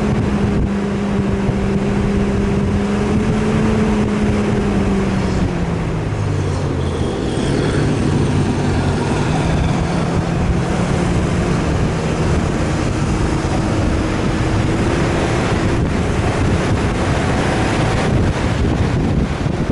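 Off-road 4x4's engine running under load, its pitch dropping about five seconds in and settling lower, over a steady rush of wind noise.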